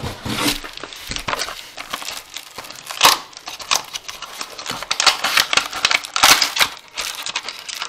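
Packaging being crinkled and torn open by hand: irregular crackling with a few sharper rips, the loudest about three, five and six seconds in.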